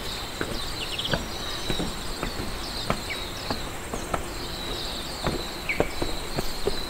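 Footsteps knocking on a wooden ramp and deck, irregular, about two a second, over a steady high chirping of insects.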